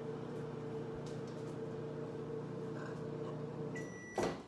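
Over-the-range microwave oven running with a steady hum while softening butter. Nearly four seconds in the hum stops, a single short high beep sounds, and a sharp click follows.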